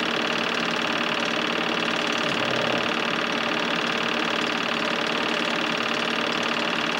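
Film projector running steadily: an even mechanical whirr holding several steady tones.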